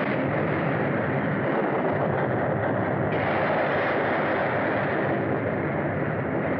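Steady, dense rumbling noise with no distinct blasts or strokes.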